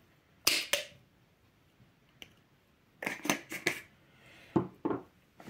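Short rustles and taps from small paper spice packets being handled as the paprika is shaken out and the packets put aside, in three short clusters: one about half a second in, several around the middle, and two near the end.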